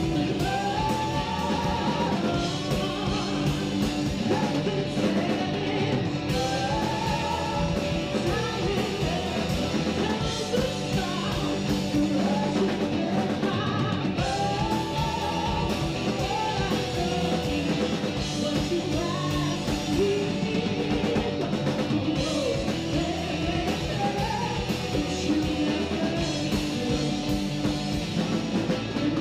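Live band playing: a woman singing melodic lines over electric bass, electric guitar and a drum kit keeping a steady beat.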